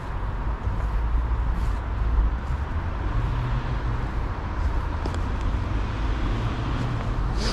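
Steady low rumble of a motor vehicle running, with a brief click near the end.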